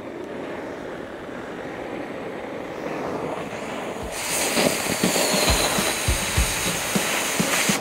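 Oxy-fuel cutting torch hissing on a steel fence pipe. About halfway through, the hiss jumps to a much louder, harsher rush as the cutting oxygen opens and the flame cuts into the 2 7/8-inch top-rail pipe, with irregular low thumps.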